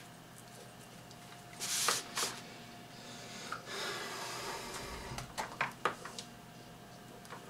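Hands handling a bundle of computer power-supply wires and their plastic connectors: two short rustles, a longer rustling scrape, then a quick run of light clicks.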